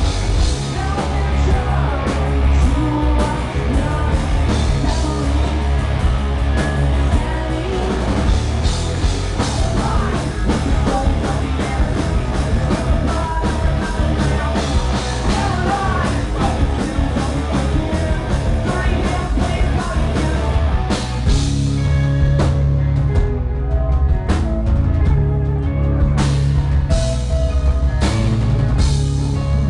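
Live rock band playing loudly, with a male singer, drums and guitars. About two-thirds of the way through the full band thins to a sparser part with spaced-out cymbal hits over a heavy bass line.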